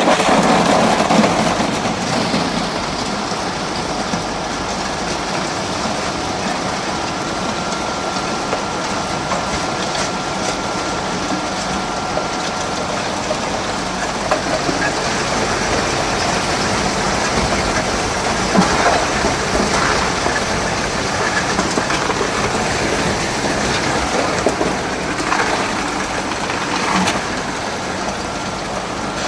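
Ice-plant machinery running steadily: a continuous mechanical hum with a faint steady whine that fades about halfway through, and a few scattered knocks.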